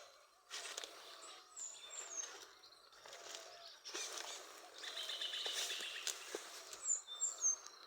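Birds chirping: short high chirps that slide down in pitch, once about two seconds in and again near the end, and a quick trill in the middle. Bursts of rustling noise come and go underneath.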